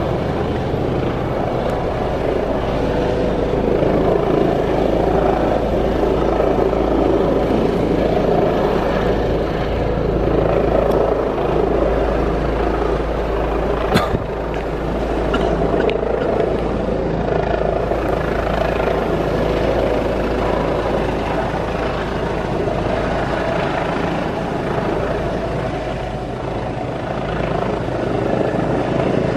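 Helicopter coming in to land close by: a loud, steady rotor and engine noise. A single sharp click about halfway through.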